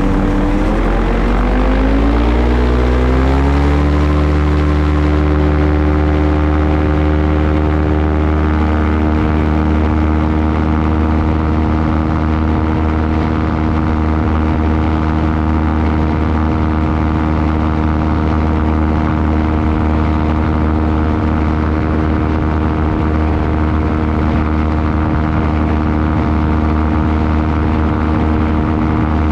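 Small aircraft's propeller engine running loud and close, its pitch rising over the first few seconds as it goes to full power, then holding a steady drone through the climb-out.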